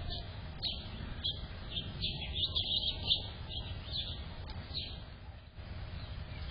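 Small songbirds chirping: clusters of short, high, falling chirps that die away near the end, over a steady low rumble.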